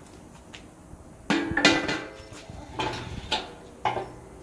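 Steel lid and cooking grate of a Pit Barrel Cooker clanking as the lid comes off and the grate is handled: one loud ringing metal clank about a second in, then three lighter clanks.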